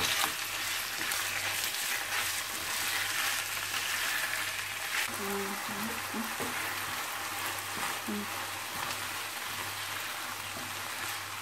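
Diced chicken breast frying with onion and carrot in oil in a nonstick frying pan, a steady sizzle, with a spatula stirring it at times.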